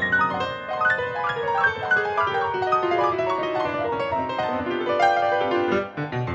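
Several pianos playing together: fast runs of notes moving up and down the keyboard, briefly dipping in loudness near the end.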